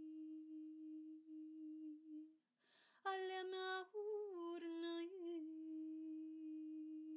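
A solo voice humming a steady held note in wordless light-language vocalizing. About two and a half seconds in it breaks off for a breath, then sings a louder, brighter note whose pitch wavers and settles back into the steady hum.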